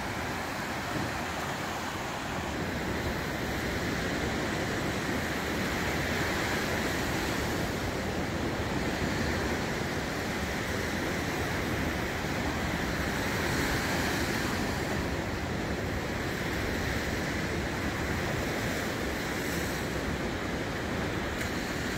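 Surf breaking and washing up a sand beach: a steady rushing wash of waves that swells a little every few seconds.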